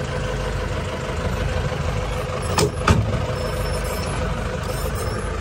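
Jeep engine running steadily, heard from inside the cabin while driving, with two sharp knocks about a third of a second apart a little past halfway through.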